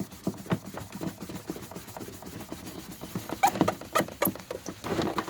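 Cloth rag rubbing over a freshly wet-sanded headlight lens to wipe it off, a quick run of small squeaks and rubs with a few louder strokes about three and a half to four seconds in.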